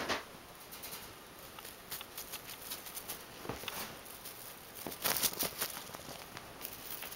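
Two Abyssinian kittens' paws scuffing and scratching on a quilted bedspread as they scamper and pounce: scattered soft taps and scrapes, with a busier flurry about five seconds in.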